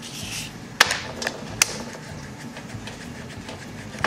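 Small clicks and scraping from the ignition breaker points of a Suffolk Super Colt engine as a paper card is worked between the contacts to clean them. A brief scrape at the start, then three sharp clicks in the first two seconds and fainter ticks after.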